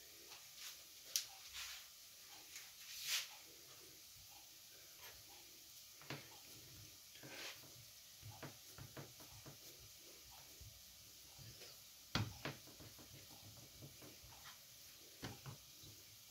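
Faint, scattered clicks and soft taps from hands working fresh sausage on a wooden cutting board, peeling off the casing and pressing the meat flat, with a knife on the board. A few sharper clicks stand out, about a second in, about three seconds in and about twelve seconds in.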